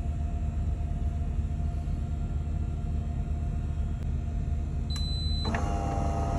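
Bean-to-cup espresso machine humming low and steady; a short high beep near five seconds in, then a motor starts to whine about half a second later.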